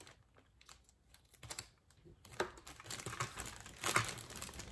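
Plastic Lego parts bag crinkling as it is handled and opened: a few faint crackles at first, then busier crinkling from about halfway, loudest near the end.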